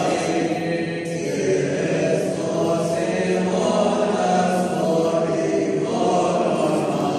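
Choir singing a slow hymn, voices holding long notes.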